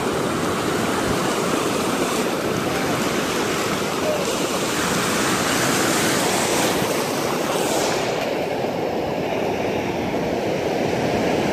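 Shallow surf washing in and foaming over sand: a steady rush of waves whose hiss eases about eight seconds in.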